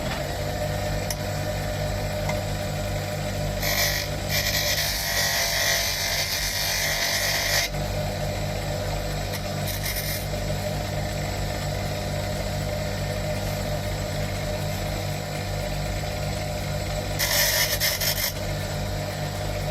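Grinder motor running steadily, with a cut steel bolt end pressed against the wheel in three spells of harsh grinding: a long one about four seconds in, a short touch around ten seconds, and another near the end. The grinding cleans up the rough end of the bolt after it was cut to length.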